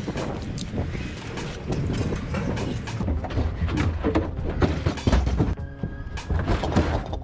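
Scrap metal clanking and clattering in a run of irregular knocks and bangs as pieces are handled and tossed, with music underneath.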